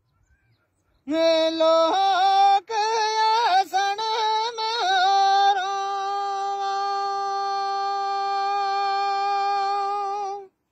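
A man sings a Gojri baith folk song unaccompanied in a high voice. The singing starts about a second in with short wavering, ornamented phrases, then settles into one long held note of about five seconds that cuts off near the end.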